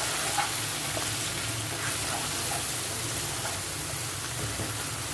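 Chopped vegetables and spices frying in hot oil in a pan, a steady sizzle.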